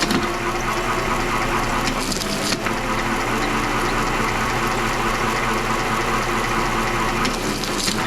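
A machine running steadily: a continuous mechanical hum with noise, unbroken throughout.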